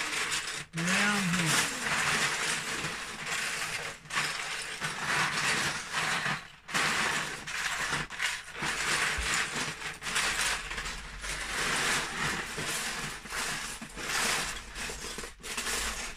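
Loose Lego bricks clattering as hands rake and sift through plastic storage tubs full of them: a continuous rattle of plastic on plastic, with a few brief lulls.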